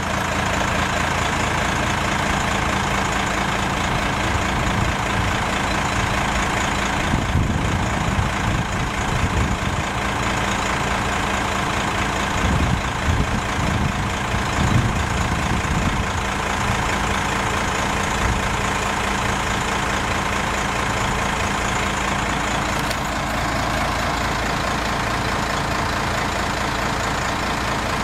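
Cummins 8.3 L inline-six diesel of a 1994 Ford LNT8000 truck running steadily while the truck's hydraulic inspection boom is being operated.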